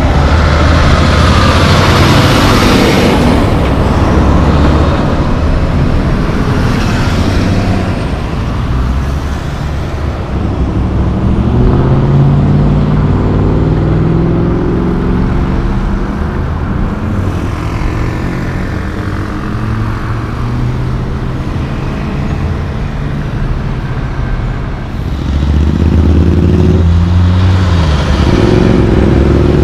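Diesel engines of loaded logging trucks driving past with other road traffic. The first truck goes by loudly at the start. In the middle an engine's pitch climbs several times as a truck pulls up through its gears, and near the end another loaded truck passes close and loud, accelerating.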